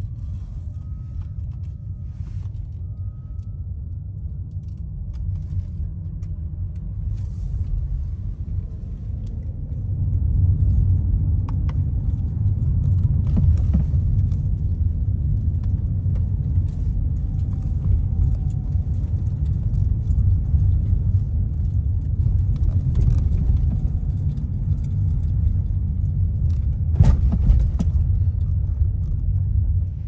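A car driving, heard from inside the cabin: a steady low rumble of tyres and engine with a few light clicks and rattles. It gets louder about ten seconds in.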